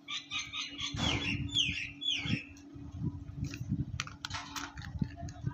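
A bird chirping: a run of quick calls about a second in, three of them sliding down in pitch, over low rumbling handling noise. A few sharp clicks follow near the end.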